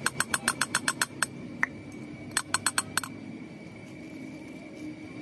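Small steel valve-train parts (tappet buckets and shims) clinking against the aluminium cylinder head as they are set into their bores. A quick run of light metallic clinks, about seven a second, is followed by a single clink and a second shorter run about halfway through.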